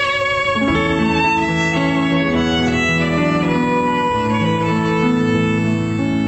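Instrumental background music: held melodic notes changing every half second or so over a chordal accompaniment, at a steady level.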